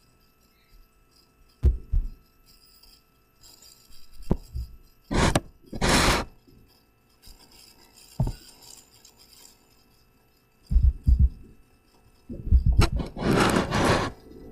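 Several separate rubbing and scraping noises close to the microphone, with a few short knocks among them; the longest lasts about a second and a half near the end.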